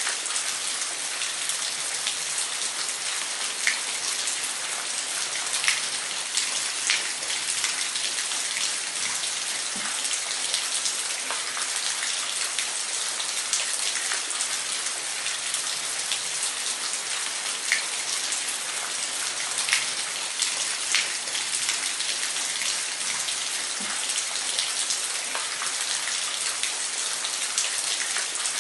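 Waterfall: a steady hiss of falling water, with scattered brief splashes standing out now and then.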